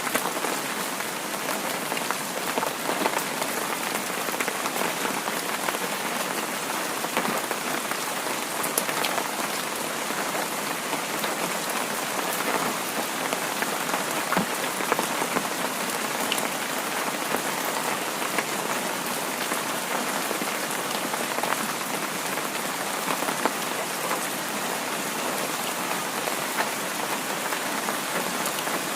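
Heavy rain falling steadily, a dense even hiss dotted with many small drop impacts.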